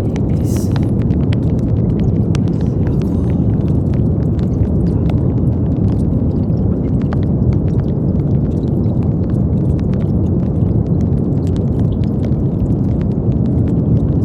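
Steady brown noise: an even, deep rumbling hiss with most of its weight in the low end, unchanging in level.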